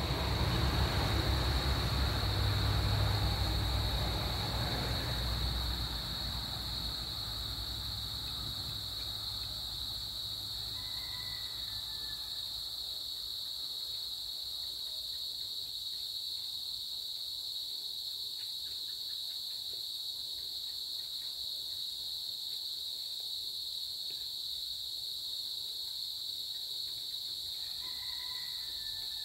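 Steady high-pitched chirring of crickets. A vehicle passing on the nearby highway rumbles over it in the first few seconds and fades out. A short two-note call sounds twice, about ten seconds in and again near the end.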